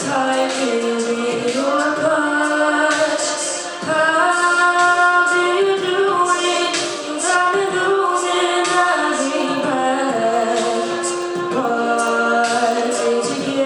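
A cappella vocal group singing held chords in close harmony, with female voices on top.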